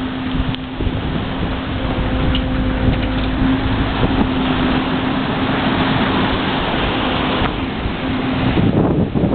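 Wind buffeting the microphone and water rushing past the hull of a large sailing yacht under way, with a steady hum through most of it that stops near the end.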